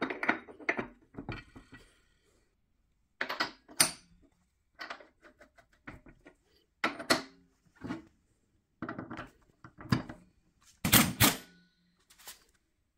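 Irregular metal clanks and clinks of steel suspension parts being handled and set down: the spindle, bearing retainer and backing plate of a Corvette rear trailing arm on a steel workbench. The loudest clatter comes about eleven seconds in.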